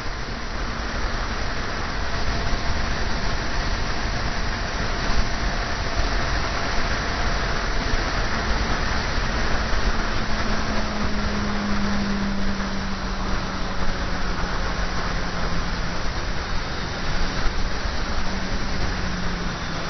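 Motorcycle riding at road speed: wind rushing over the onboard camera's microphone, with the engine's steady drone underneath that drops slightly in pitch over the second half.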